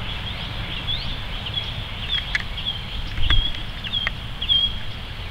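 Small birds chirping over and over in short high notes. Wind rumbles on the microphone, with a louder low buffet a little past three seconds in.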